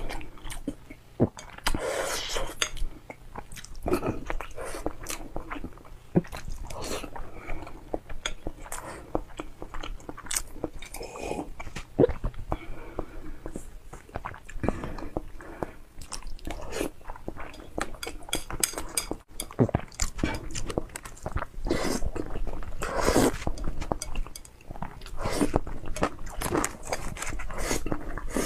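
A person eating instant noodles close to a lapel microphone: wet chewing and lip smacks with many short sharp clicks, and a few longer noodle slurps, one about two seconds in and one near the end.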